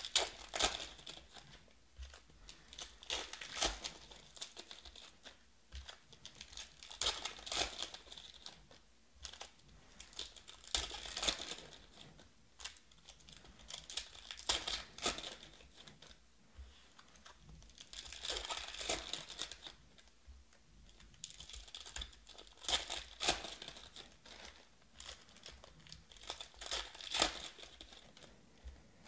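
Trading-card packs being torn open by hand and their foil wrappers crinkled, one pack after another, in bursts of crackling every three to four seconds.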